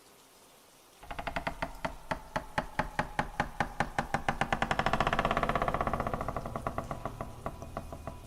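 Rapid, evenly spaced clicks starting about a second in and growing quicker, over a swelling tone that fades toward the end: a ticking suspense sound effect.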